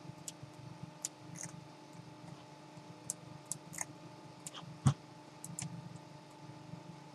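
Irregular clicks and taps of a computer mouse and keyboard over a steady low hum, with one louder knock about five seconds in.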